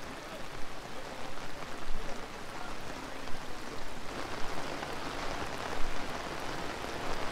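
Heavy rain pouring down, a dense steady hiss of falling drops with small uneven swells in loudness.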